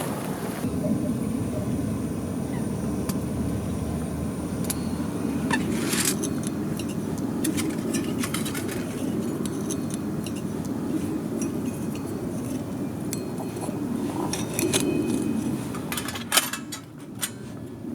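Scattered light clicks and clinks of camp gear being handled, over a steady low rumble, with one sharper click near the end.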